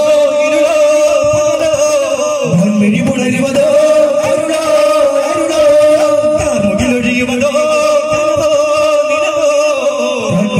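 Daff muttu: male voices singing a long-held, chant-like melody in unison over the beat of daf frame drums struck by the troupe.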